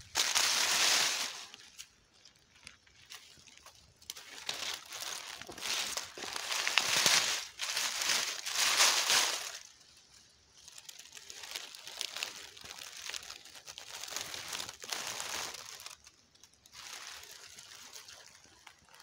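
Footsteps rustling through dry fallen leaves, in irregular bursts of varying loudness, loudest near the start and in the middle.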